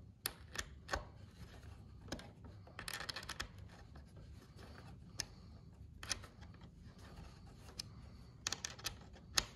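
Small hand screwdriver tightening a wing screw on a foam RC jet in half turns: faint scratching of the blade in the screw head and scattered sharp clicks as the driver is lifted and reset, with a scratchy stretch about three seconds in and a quick cluster of clicks near the end.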